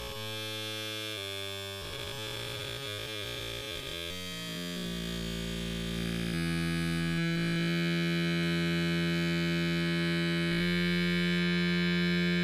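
Synthesizer music: held electronic tones that change pitch every second or so, then settle into one long buzzy note about six seconds in, shifting once more near the end.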